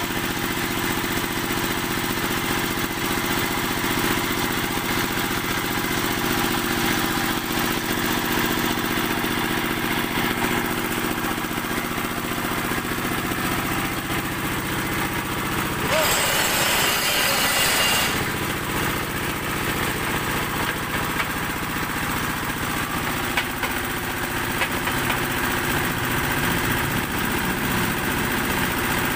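Small single-cylinder stationary diesel engine running steadily, powering a concrete block press. A brief rushing noise breaks in about two-thirds of the way through.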